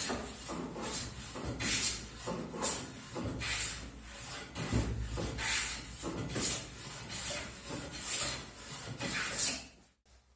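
Hand plane shaving a wooden table leg clamped in a vise to cut its taper: a rasping stroke about once a second. The strokes stop abruptly near the end.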